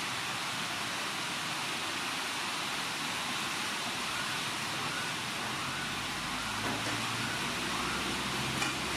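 Steady, even hiss of outdoor background noise, with a low hum coming in about two-thirds of the way through.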